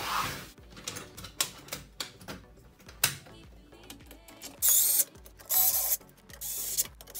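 Electric screwdriver driving screws into an amplifier's metal rear panel in several short whirring runs through the second half. Before that come clicks and clatter as the metal chassis is handled and turned on the bench.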